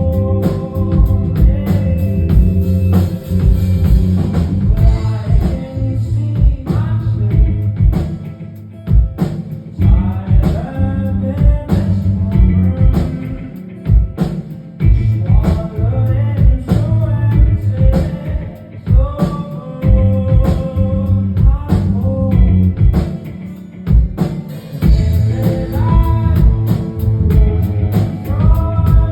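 Live rock band playing, with a male lead vocal singing over drum kit, bass and guitar, recorded from the audience so it sounds loud and somewhat boomy.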